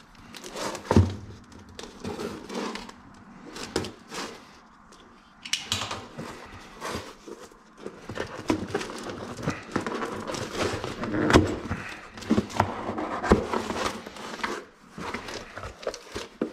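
A cardboard shipping box being opened and unpacked: rustling and crinkling packaging with irregular clicks and several knocks as metal brace parts and hardware are handled.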